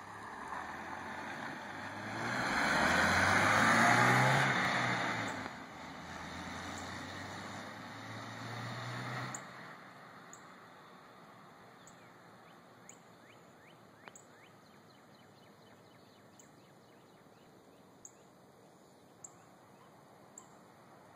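1994 Saturn SL1's 1.9-litre four-cylinder engine and exhaust pulling away under acceleration. The engine is loudest from about two to five seconds in, its pitch climbing, then falls off and climbs again before cutting out abruptly about nine seconds in. After that there is a quiet stretch with only faint high chirps.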